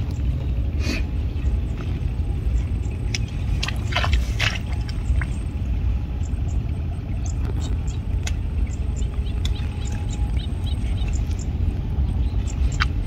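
Steady low rumble of wind on the microphone, with scattered snaps and rustles of leafy plant stems being picked by hand.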